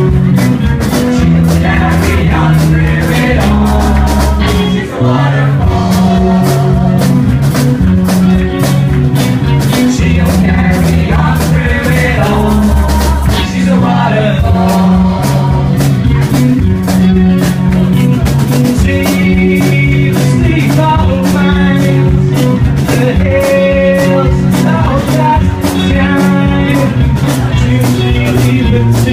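Rock song playing loudly, with a steady drum-kit beat, bass and guitar, and a singing voice at times.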